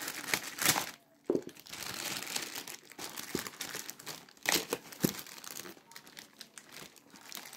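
A thin plastic bag and paper wrapping crinkling and rustling as they are handled and pulled open, in irregular bursts with sharp crackles and a brief pause about a second in.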